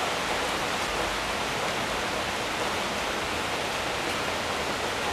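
Steady, even hiss of falling rain.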